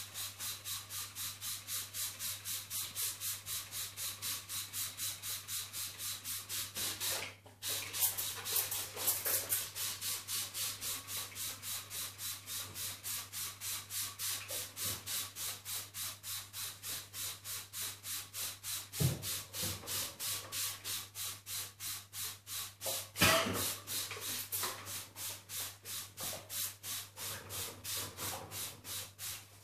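Hand trigger spray bottle pumped rapidly, each pull a short hiss of spray, about three a second with a brief pause about seven seconds in. The bottle is spraying activator solution onto a part in a spray-on chrome process.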